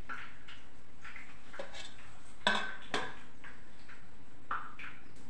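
Light clicks and taps on a ceramic plate as almond slivers are scattered over malpua, with two sharper clinks about half a second apart near the middle.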